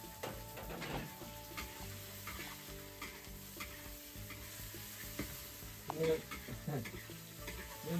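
Spatula scraping and stirring green chili peppers in a large iron wok as they sizzle in hot oil, with frequent short scrapes of metal on metal.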